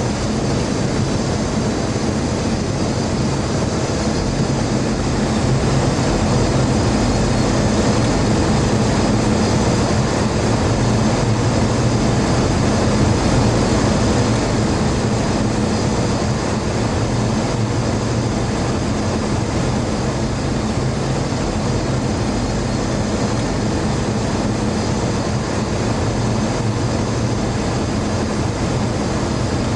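Steady flight-deck noise of a Boeing 737 on short final approach: an even rush of air with a low hum underneath, without a break.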